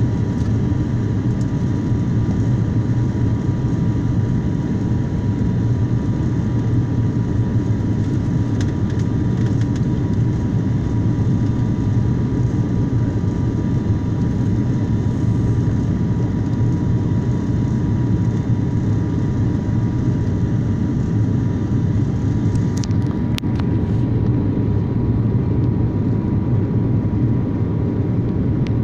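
Airliner cabin noise on the landing approach: a steady, loud low rumble with a faint steady high tone in it. A few light clicks come late on.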